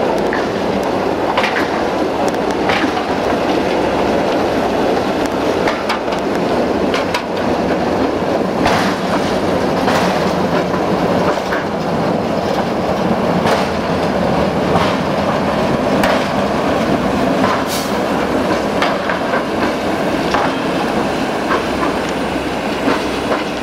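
Rail-laden flat wagons of a Robel track train rolling past, with a steady rolling rumble and irregular sharp metallic clacks and knocks from the wheels and running gear.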